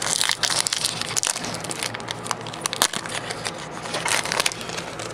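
Foil wrapper of a Pokémon trading card booster pack crinkling and crackling as it is opened by hand, a dense run of sharp crackles that thins out near the end.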